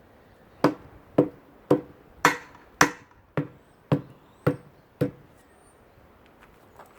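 A hammer striking a tire's bead on an old wheel rim, nine blows about two a second, to knock the bead down off the rim; the blows stop about five seconds in.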